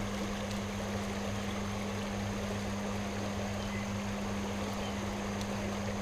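Steady rushing of a shallow creek flowing over a stony riffle, with a constant low electrical hum underneath.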